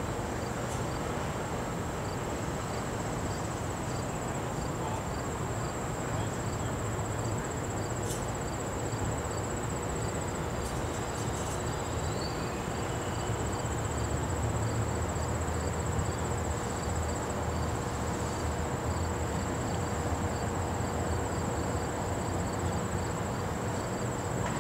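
Insects chirping steadily in a high, even trill with a regular pulsing note beneath it. Under them is a low rumble from a GO Transit bi-level commuter train approaching slowly, growing slightly louder midway.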